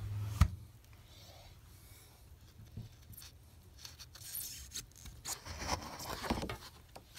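Wooden contact printing frame being opened and handled: a sharp click about half a second in, then scattered light clicks, scraping and paper rustling as the negative and the print are taken out.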